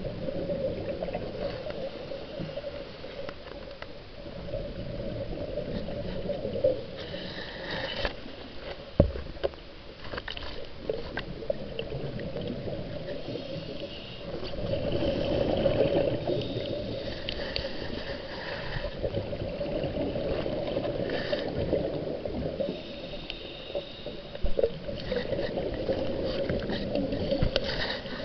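Muffled underwater water noise picked up by a camera submerged in lake water: a continuous gurgling wash with scattered sharp clicks and knocks, swelling louder about halfway through.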